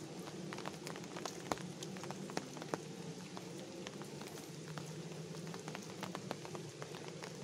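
Light rain falling, many sharp drop ticks at irregular intervals over a steady hiss, with a steady low hum underneath.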